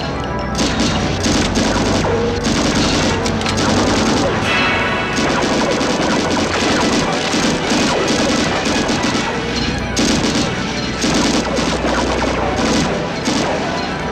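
Sustained bursts of automatic gunfire from a shield-mounted deck machine gun, with rounds smashing into a motor yacht's cabin and hull.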